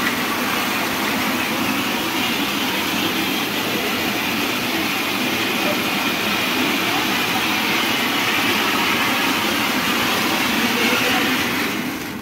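Indoor spark fountains spraying, a steady loud hiss with fine crackling that cuts off near the end.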